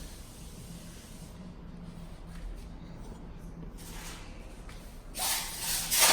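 Craftsman plastic toolbox being handled: a few faint taps, then about five seconds in a loud scraping rub against its hard plastic.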